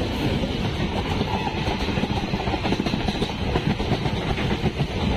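Hazarduari Express coaches rushing past on the adjacent track, heard from the open doorway of a train: a loud, steady rumble and rattle of steel wheels on rail with rapid clattering flutter.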